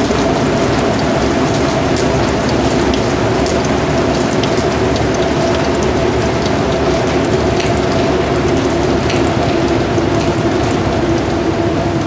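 Heavy rain falling steadily on trees and surfaces, with scattered sharper drop hits, over a steady hum.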